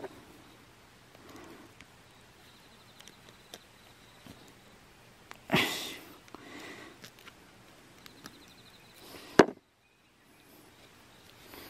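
Steel wire rope and metal parts of a leg snare handled with gloved hands: faint rustling, a sudden clack about halfway through that dies away quickly, and a sharp click near the end, the loudest sound.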